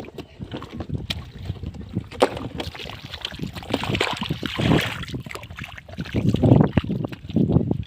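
Shallow muddy water sloshing and splashing in irregular surges, with small knocks, as hands work through it feeling for fish.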